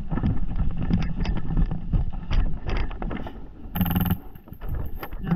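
Wind buffeting the microphone and movement noise, then a short burst of airsoft gun fire, a brief buzzing rattle under half a second long, about four seconds in.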